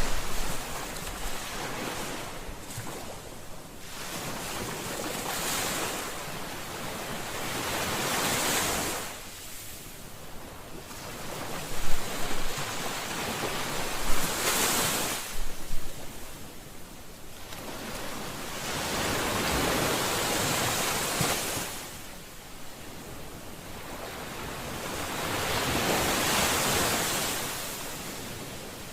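Ocean waves breaking and washing ashore, the surf swelling and fading every few seconds, with a few sharper splashes near the middle.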